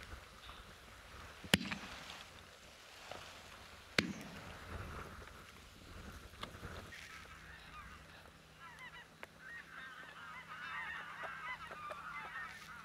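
Two shotgun shots, the first about a second and a half in and the second about two and a half seconds later. From about eight seconds in, a flock of greylag geese honking, many calls overlapping.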